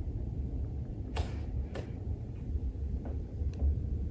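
Low, uneven rumble of wind on a phone microphone, with two sharp clicks about a second in and a fainter click near the end.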